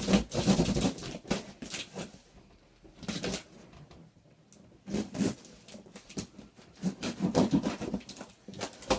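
Packaging being handled and pulled away from a new scooter: bursts of rustling and scraping, with a quieter pause in the middle.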